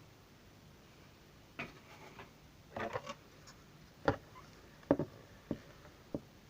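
Light clicks and taps of small hard objects being handled, about six of them at irregular intervals, the sharpest a little after four and five seconds in.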